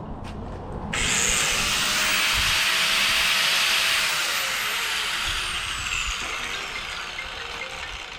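Electric cutting tool switched on about a second in: its motor whines up to speed and cuts loudly for about three seconds, then it is released and winds down with a falling whine as the cutting noise fades.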